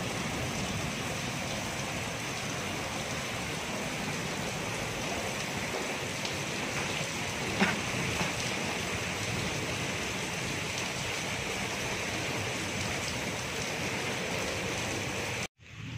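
Heavy rain pouring steadily onto a concrete courtyard and surrounding walls, with a single knock about halfway through. The sound breaks off suddenly just before the end.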